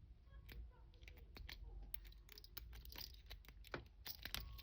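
Faint, irregular metallic clicks and scratches of a hair grip being worked against the pins inside a small pin-tumbler padlock under tension, as the lock is picked.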